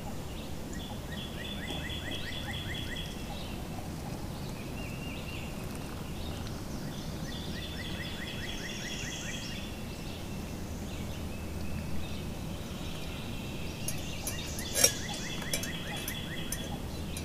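Repeated high, rapid trilling calls from wildlife, each lasting a second or two and coming several times, over a steady low outdoor background. A single sharp metallic clink about three-quarters of the way through is the stainless pot being handled after the pour.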